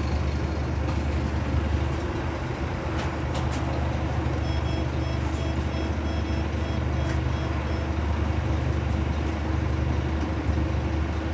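Scania K360UA articulated bus's diesel engine running with a steady low hum, heard from inside the passenger cabin. About halfway through, a run of short high electronic beeps sounds for about three seconds.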